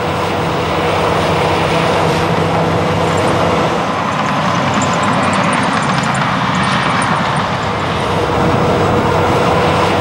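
Diesel bulldozers and articulated dump trucks running steadily while they push and haul earth. About halfway through there is a run of faint, high, evenly spaced clinks.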